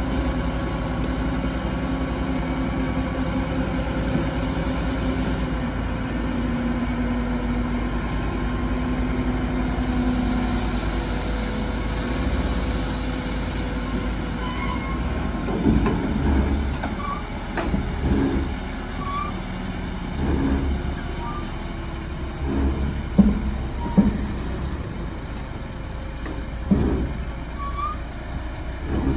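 Heavy dump truck diesel engines running steadily while the tipper beds are raised to unload dirt. About halfway through, a series of irregular knocks and thuds starts as the load slides out of the tipped bed.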